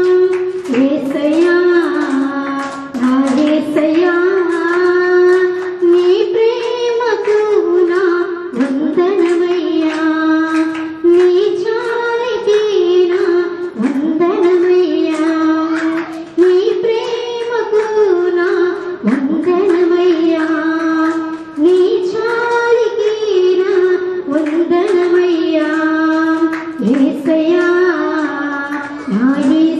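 A woman singing a Telugu devotional hymn solo into a microphone, in phrases of about two seconds that each slide up into a held note.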